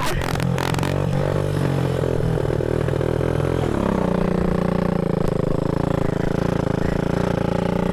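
Small minitrail dirt-bike engine running steadily. About halfway through, its note changes, then holds steady.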